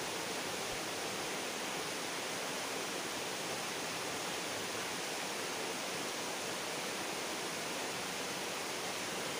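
Steady rushing of flowing stream water, an even hiss with no breaks.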